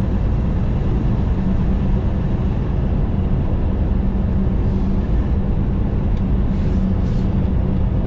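Steady drone of a semi-truck's engine and road noise heard from inside the cab while driving, a constant low rumble with a faint hum.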